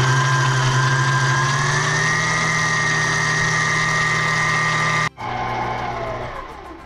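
Electric stand mixer running, its flat beater churning vegetable shortening and sugar in a stainless steel bowl: a steady motor whine that rises slightly in pitch about two seconds in. About five seconds in the sound drops off abruptly and goes on quieter.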